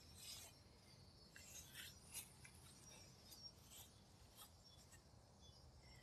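Near silence with faint, scattered rustles of grass being brushed and stepped through, several in the first few seconds and fewer after.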